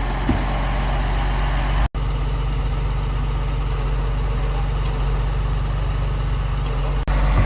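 A forklift's engine idling steadily, with a brief cut-out about two seconds in.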